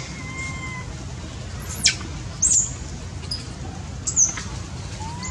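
A baby long-tailed macaque gives three short, high-pitched cries, each sliding down in pitch, at about two, two and a half and four seconds in.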